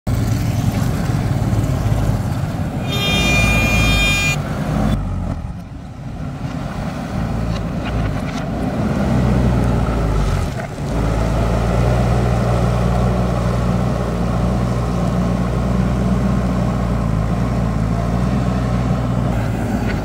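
JCB backhoe loader's diesel engine running under load as it tips gravel from its front bucket and then pushes the gravel along the road. A brief high-pitched tone sounds about three seconds in.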